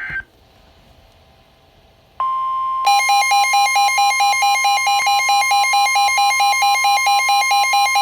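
Smartphone wireless emergency alert sounding for a severe thunderstorm warning: a steady tone comes on about two seconds in, and just under a second later a loud, harsh alarm tone joins it, pulsing about four times a second.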